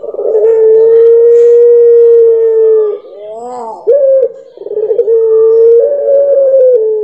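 Ringneck dove (puter pelung) giving its long, drawn-out coo. It holds a long steady note for nearly three seconds, follows with a couple of short rising-and-falling notes, then another long note that slides down in pitch at the end.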